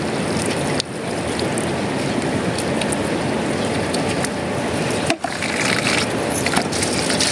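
A thin stream of water from a pipe pours onto a stone slab with a steady splashing, briefly dropping out about a second in and again about five seconds in.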